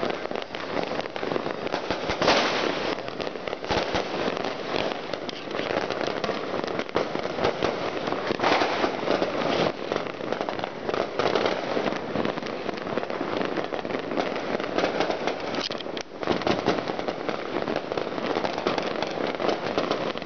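Many firecrackers and fireworks going off at once across a city, their pops merging into a continuous crackle. A few louder bangs stand out from the mass, about two, eight and fifteen seconds in.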